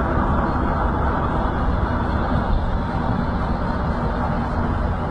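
Steady road and engine noise of a vehicle travelling at highway speed, heard from inside the cabin.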